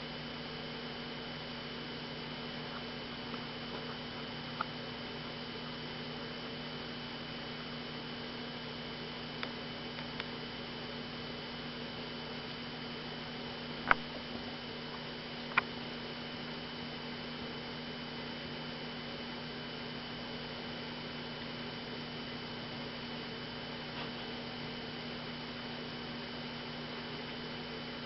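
Steady electrical hum with a faint hiss, broken by a few short sharp clicks; the two loudest come about 14 and 15½ seconds in.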